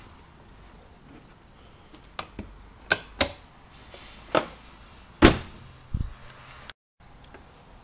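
Sharp clicks and knocks from handling a Privileg 370 S washing machine, about seven in all over some four seconds, the loudest a little past the middle, ending with a low thump.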